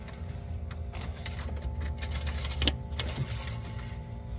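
Faint scattered clicks and rubbing of a metal engine-oil dipstick being pulled from its tube and handled in a cloth towel, over a low steady background hum.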